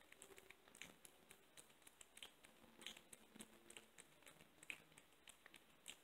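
Faint, irregular wet clicks and smacks of a kitten chewing raw chicken in her bowl.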